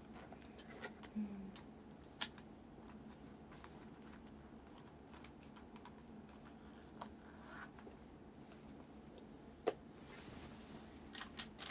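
Quiet room with a few scattered light clicks and taps from small objects being handled. The loudest tap comes near the end.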